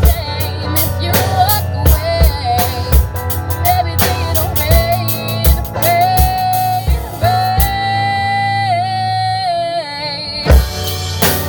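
Band playing a pop song live, a singer holding long notes over a drum kit and bass. Near the end the drums drop out, leaving a held sung note with vibrato, then loud drum hits come back in.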